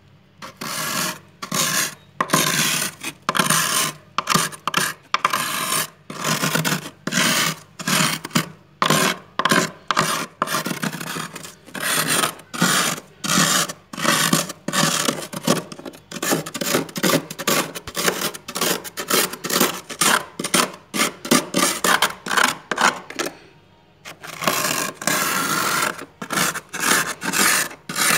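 Freezer frost being scraped with a utensil in quick, repeated rasping strokes, roughly two a second, with a brief pause about three-quarters of the way through.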